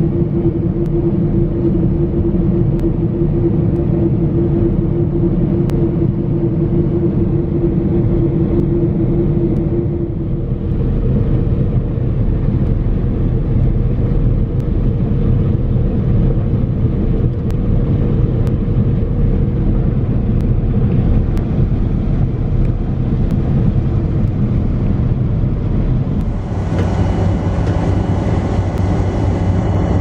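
Claas Lexion combine harvester working, heard from inside the cab: a steady, loud machinery drone with a steady whine over it that stops about ten seconds in. Near the end the sound changes to the combine heard from outside, brighter and with several steady tones.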